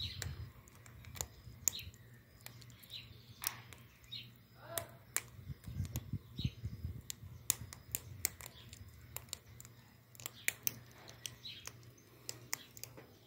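Blue-fronted amazon parrot eating a red guava: many sharp clicks of its beak biting into the fruit at irregular intervals, with a few soft, short chirps.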